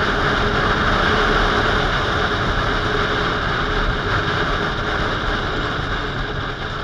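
Sport motorcycle riding along at road speed: a steady rush of wind and road noise over the bike-mounted camera, with the engine running underneath.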